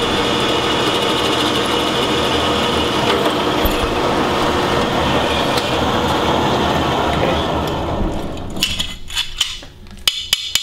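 Bench drill press running steadily as it drills the thong hole through a 440C steel knife blank. About eight seconds in the motor dies away, and sharp metallic clicks of the steel blank being handled follow.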